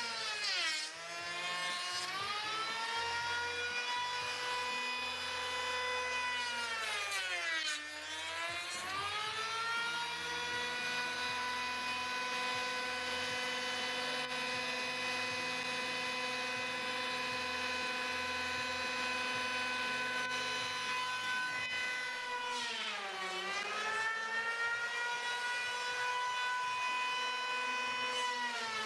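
Handheld electric grinder shaping Alaskan yellow cedar: a steady high motor whine that sags in pitch three times, about a second in, near eight seconds and near twenty-three seconds, as the tool is pressed into the wood, then speeds back up.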